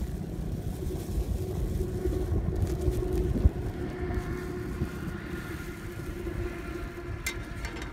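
Wind rumbling on the microphone, with a steady engine drone underneath that grows a higher hum about halfway through. One short sharp click near the end.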